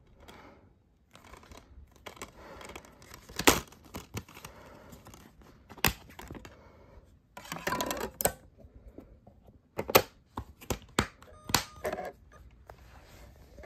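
Hard plastic DVD case and disc being handled: a string of sharp clicks and snaps as the disc is pressed off the case's center hub and moved, with a stretch of rustling in the middle. The loudest snaps come about three and a half seconds in and again near ten seconds.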